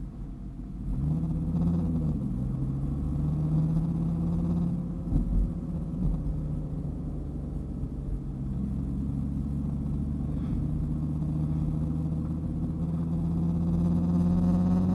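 Dodge Viper's V10 engine running while driving, its revs rising about a second in, easing back a second later, then climbing slowly through the second half. A few short knocks come about five seconds in.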